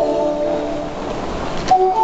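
The platform's electronic chime melody, with bell-like mallet tones, plays a tune over the station speakers while the track is still empty, as the Osaka subway plays when a train is about to arrive. Midway a rush of noise swells up and ends in a sharp click near the end.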